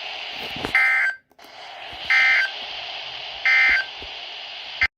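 Emergency Alert System end-of-message data tones: three short bursts of digital warbling, each lasting a fraction of a second and about a second and a half apart, over steady radio hiss. They mark the end of a weather warning broadcast.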